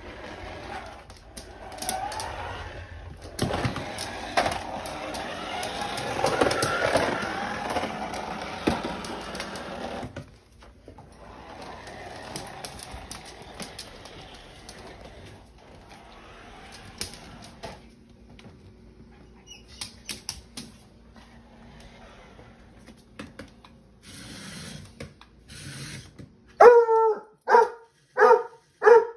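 A puppy barking at a remote-control toy spider: about five sharp barks in quick succession near the end. Earlier, a few seconds in, there are several seconds of rough scuffling noise.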